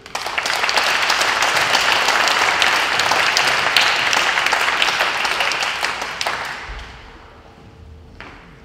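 Audience and candidates applauding. The applause starts sharply and dies away after about six and a half seconds.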